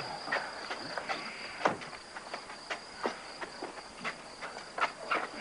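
A steady high insect trill, like crickets chirring in a field, over irregular shuffling footsteps and scuffs on a dirt path.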